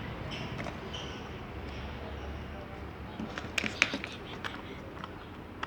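Homemade slime being played with by hand, with a quick run of sharp pops and clicks a little past halfway.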